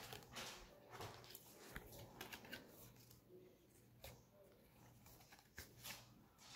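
Near silence, with faint rustles and a few scattered light clicks of Pokémon trading cards being handled.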